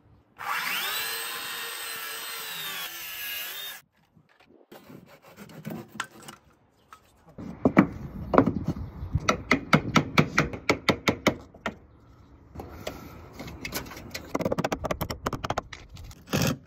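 Cordless power driver backing out screws from the wooden underside of a camper box: a motor whine that rises as it spins up, holds, then dips and stops about three and a half seconds in. Later comes a run of quick wooden knocks and rubbing as the board is worked, then lighter taps near the end.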